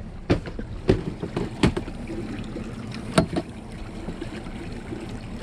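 Handling knocks and thuds against the fibreglass fittings of a boat around an open fish box as the catch is put away. There are four sharp loud knocks in the first three and a half seconds, with smaller ones between, over a steady low hum and water against the hull.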